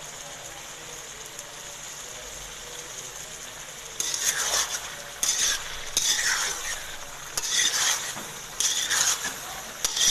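Chicken karahi frying in ghee in a karahi, sizzling steadily; about four seconds in, a metal spoon starts stirring it, each stroke bringing a burst of louder sizzling and scraping, roughly once a second.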